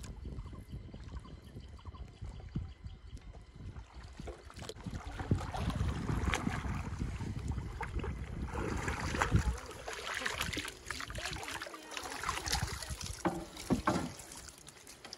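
Water sloshing and splashing as a hand net is worked and lifted out of a river, then a dense crackling rustle of wet waterweed being picked through in the net.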